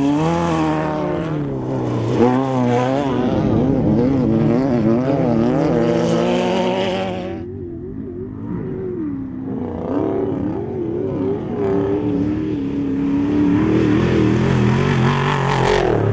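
Off-road race vehicle engine at high revs, its pitch swinging up and down rapidly as the throttle works over rough ground. About seven seconds in the sound abruptly turns duller and quieter, then builds again with more revving.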